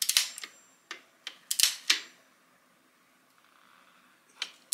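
Ratchet torque wrench, set to 12 Nm, clicking in short strokes as it tightens a motorcycle's oil drain bolt. There are several quick clicks in the first two seconds, a pause, then more clicks near the end. The wrench has not yet broken over at its setting.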